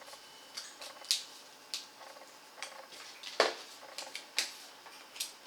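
Packaging and parts of a collectible figure's box being handled: scattered light clicks and rustles, with a sharper knock about three and a half seconds in.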